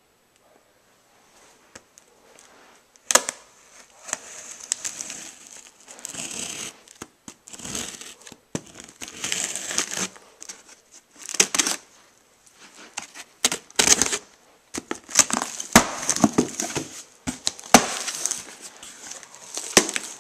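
A cardboard shipping box being opened by hand: after a few quiet seconds a sharp snap, then tearing and crinkling of packing material in irregular bursts, with scattered sharp clicks.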